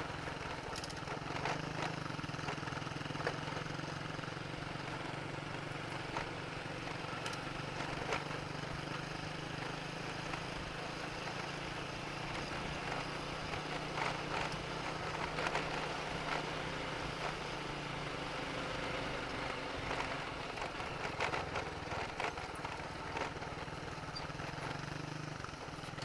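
Honda Supra X 125's small single-cylinder four-stroke engine running at a steady pace while riding, with wind and road noise over it.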